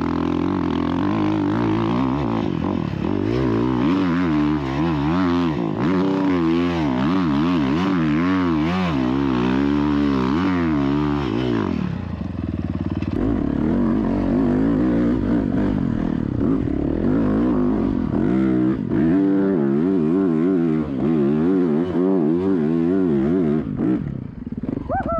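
Dirt bike engine heard up close from on the bike, revving up and down over and over under throttle while riding a hill. About halfway it holds a steadier note for a moment, then goes back to rising and falling revs.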